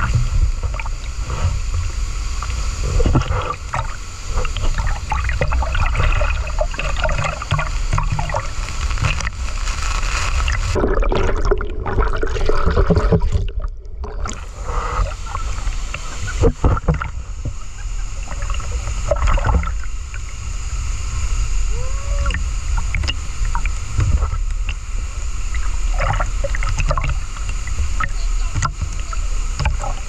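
Rushing river water close to the microphone, steady and loud, with scattered small knocks. The sound turns muffled for a few seconds near the middle.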